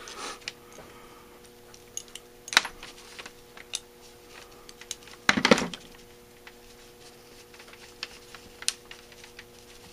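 Small metal clicks, taps and scrapes of a screwdriver picking and prying inside a Holley 4000 teapot choke housing held in the hand, working a stuck part loose. Louder knocks come about two and a half and five and a half seconds in.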